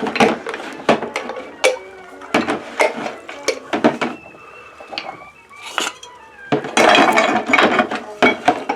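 Metal parts of a cast iron coffee grinder clinking and knocking against each other and a wash basin as they go in to soak in ammonia and water. The knocks are irregular, with a brief metallic ring about four seconds in and busier clattering near the end.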